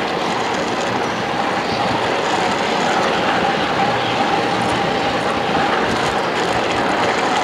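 Ride-on miniature railway train running along the track: a steady rolling noise of small wheels on rails, with a faint steady high whine running through it.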